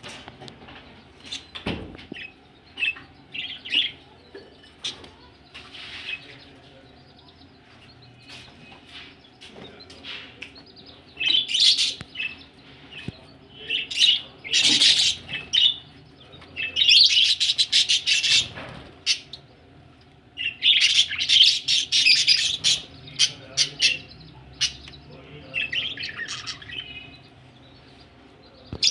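Pet budgerigars chirping and chattering in irregular bursts of high chirps, louder and denser from about a third of the way in.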